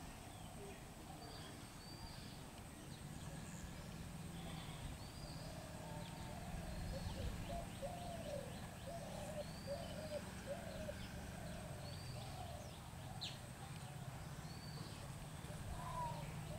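Birds calling: a run of short, low, arched notes repeated over and over, with higher chirps scattered among them, over a steady low background rumble.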